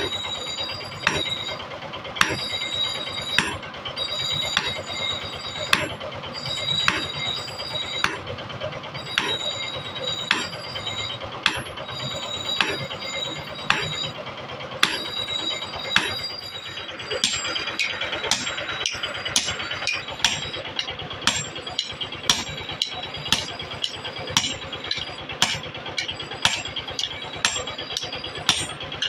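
Hammer blows forging a hatchet head held in tongs on a steel block anvil, each strike ringing. About one blow a second at first, then quicker blows about two a second in the second half.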